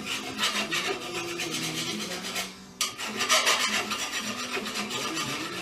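Rust being scrubbed off metal by hand: rapid back-and-forth rasping strokes, with a short break about halfway through.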